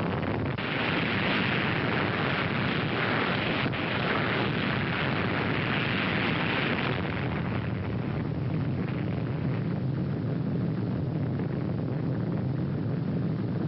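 Blast of an underwater nuclear explosion on an old film soundtrack: a sudden onset followed by a dense, steady roar of noise with no separate bangs, holding on without a break.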